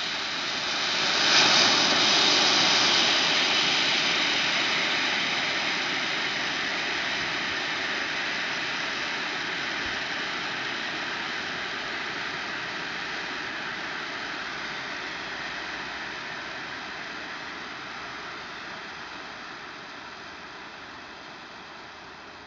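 ED-60 smoke grenade hissing steadily as it jets out white smoke. The hiss peaks about a second in, then slowly dies down.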